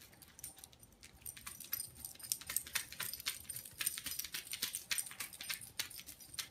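Faint, irregular light jingling and clicking, as of a dog's metal chain collar and tag moving as the Great Dane shifts its head.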